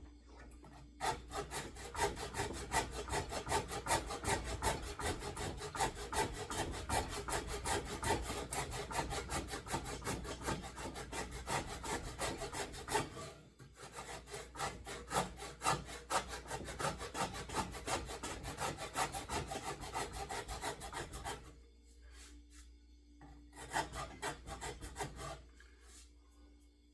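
Shinto rasp rasping along a wooden axe handle in rapid, rhythmic back-and-forth strokes, shaping the grip. It pauses briefly about halfway, stops, then a short flurry of strokes comes near the end.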